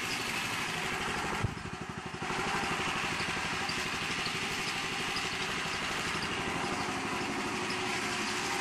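8 HP Honda single-cylinder gasoline engine running steadily under load from belt-driven alternators, fed gasoline and HHO gas together. A sharp click comes about a second and a half in, and the sound dips for under a second before returning.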